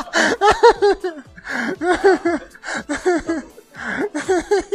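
A person laughing hard in several bursts, each a quick run of 'ha' syllables, with breathy gasps between the bursts.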